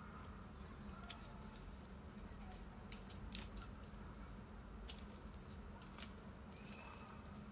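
Light clicks and taps of small items being handled on a tabletop, scattered through, over a steady low hum.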